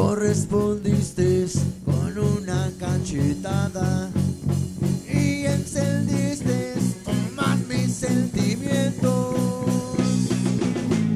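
Live rock band playing through a PA: a man singing over distorted electric guitar, bass guitar and drum kit with a steady beat. Near the end the guitars settle into held chords.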